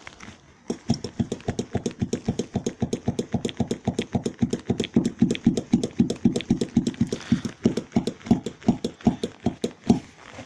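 Brand-new Trialli gas-oil rear shock absorber for a Chery Fora knocking as it is worked in quick strokes: a rapid, even train of sharp knocks, about six or seven a second, starting about a second in and stopping near the end. The owner takes the knocking for a defect of the new shock.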